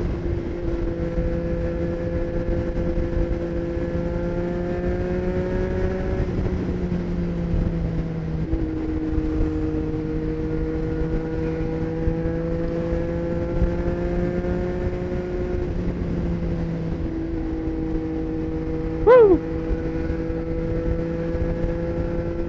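A Triumph Street Triple 765 RS inline-three with a Racefit Growler full exhaust, running steadily at highway speed under wind noise. Its note climbs slowly and drops once, about eight and a half seconds in. A short, loud chirp falling in pitch stands out near the end.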